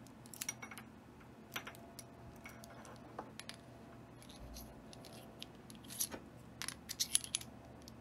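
Light metallic clicks and clinks from an Elzett magnetic rotor lock cylinder being handled with its key in the plug and a follower rod pushed in: scattered single clicks, then a quick run of them about six to seven seconds in.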